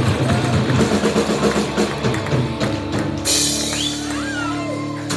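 Live rock band (drum kit, bass guitar and electric guitar) playing the close of a song: about three seconds in a cymbal crash lands and the final chord is held and rings out.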